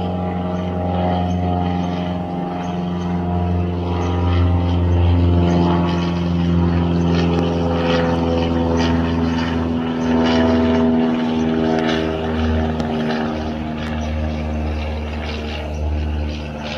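Cessna 172 single-engine propeller plane flying overhead, its piston engine and propeller droning steadily. The drone is loudest about five seconds in, and its pitch sinks slightly as the plane passes and moves away.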